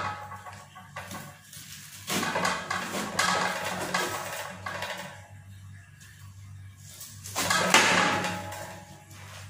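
Kitchen knife cutting down through a head of napa cabbage on a plastic cutting board, the leaves crunching in two spells, about two seconds in and more loudly near the end.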